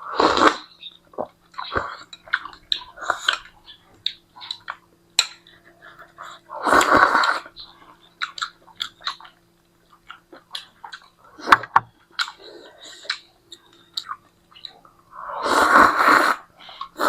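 A person eating ramyun noodles: wet chewing and small mouth clicks, broken by three loud slurps of noodles and broth, one at the start, one in the middle and one near the end.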